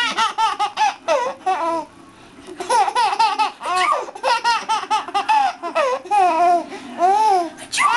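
A baby of almost nine months laughing in quick, high-pitched bursts, with a short lull about two seconds in before the laughter picks up again.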